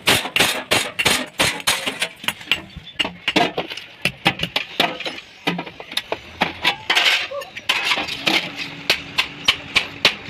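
Hammer striking sheet metal again and again, several sharp clinking blows a second, with a more uneven stretch in the middle.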